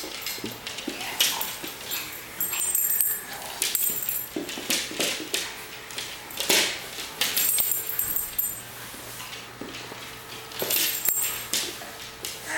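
A dog licking a baby's face: short wet licks coming irregularly, some in quick clusters.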